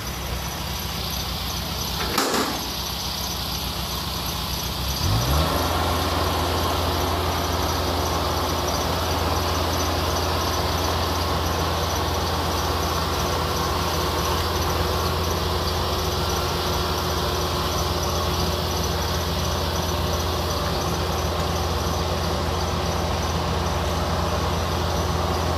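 Kubota rice combine harvester's diesel engine running as the tracked machine crawls down a steep bank. There is a sharp knock about two seconds in, and about five seconds in the engine revs up and then holds at a steady higher speed.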